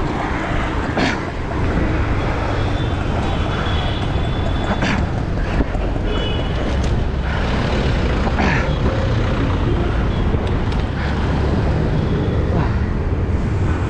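Road traffic heard from a moving road bike: motor vehicles passing with a steady rumble of wind on the action camera's microphone. There is a short, high beep near the end.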